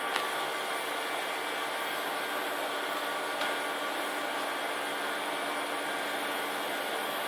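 Steady machine whir and hiss with faint steady tones, like cooling fans running, with a small click just after the start and another about three and a half seconds in.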